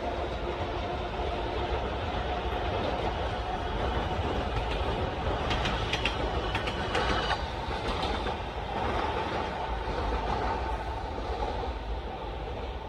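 Train running on rails, a steady rumble with a faint steady tone. About halfway through comes a quick run of clicks as the wheels pass over rail joints.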